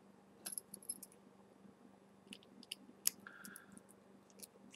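Faint, scattered small clicks and ticks of a small screwdriver and metal parts as the fill screw is turned back into the base of a Russian 91% rebuildable tank atomizer, with a brief squeak just after the loudest click about three seconds in.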